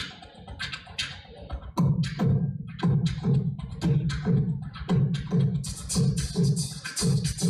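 An a cappella group's vocal percussion: sparse beatboxed clicks, then from about two seconds in a steady beatboxed beat of deep kicks, about three a second, with ticking hi-hat sounds over it. A hiss like a held cymbal joins near the end.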